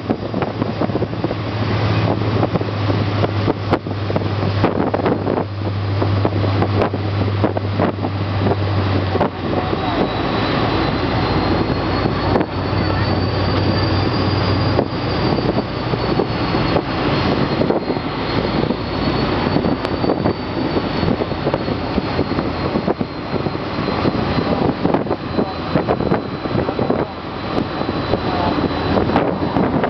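Ferry engines running with a steady roar, with wind buffeting the microphone. A low hum under the roar drops out about nine seconds in, and a thin high whine wavers through the second half.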